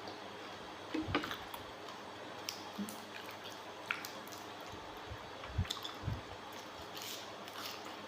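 Close-up eating sounds: wet squishing and smacking as raw seafood is chewed. Scattered small clicks and a few soft low thumps run through it.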